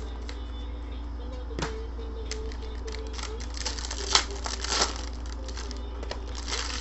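Foil trading-card pack wrapper being torn open and crinkled by hand. Scattered crackles, then a cluster of louder crinkling between about three and five seconds in, sharpest about four seconds in, over a steady low hum.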